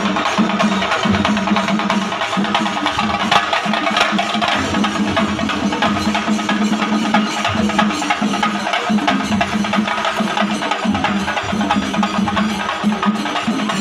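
Drums playing a fast, dense rhythm of rapid strikes, with a steady low-pitched tone underneath.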